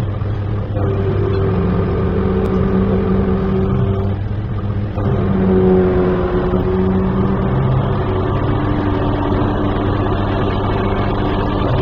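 A crane's engine heard from inside the operator's cab, running steadily under load while the crane handles a concrete block. Its revs pick up about a second in and again around five to six seconds in.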